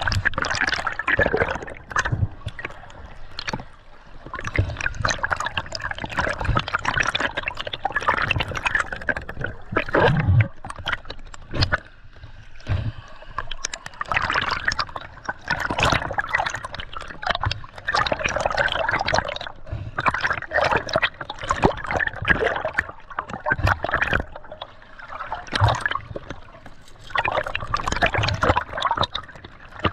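Water gurgling and trickling in uneven surges, with scattered sharp clicks and knocks.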